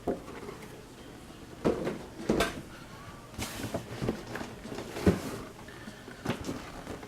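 Cardboard boxes and packaging being handled, with a few scattered knocks and scrapes and a brief rustle a little past the middle.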